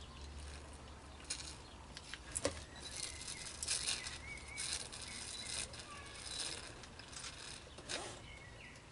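A man drinking from a glass beer bottle: a light click, then a run of short, uneven swallowing gulps.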